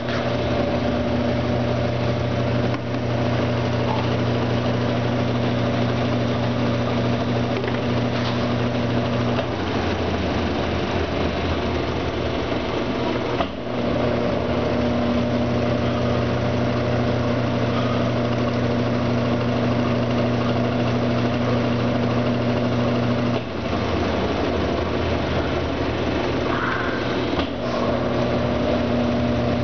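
Brastemp Ative 11 kg washing machine running, its motor and drive giving a steady hum. The hum changes about ten seconds in and again near the end, with brief dips at about 13 and 23 seconds, a repeating cycle of the machine's wash-and-spin program.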